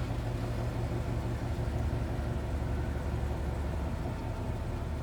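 2012 Mustang Boss 302's 5.0-litre V8 idling steadily while it warms up to operating temperature.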